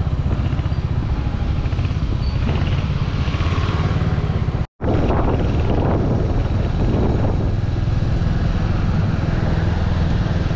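Motorcycle engine running steadily under way, heard from the rider's seat as an even low pulsing with road and wind noise above it. The sound cuts out completely for a split second about halfway through, then carries on.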